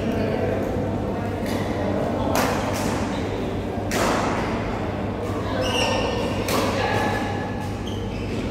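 Badminton rackets striking a shuttlecock in a large sports hall: three sharp hits spread over several seconds, each echoing on in the hall. Under them are a low steady hum and faint voices.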